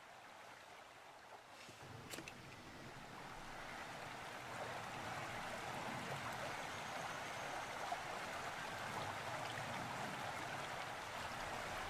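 Steady rushing of running water, faint at first and growing over the first few seconds, then holding even.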